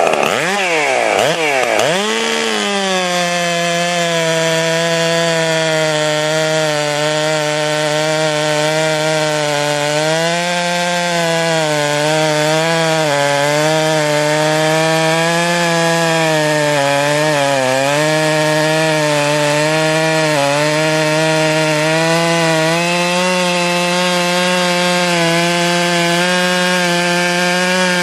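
Stihl MS661 two-stroke chainsaw, with a 7-pin sprocket and .404 chain, blipped up and down a few times, then held at high revs while cutting wood. The pitch sags now and then as the chain takes load.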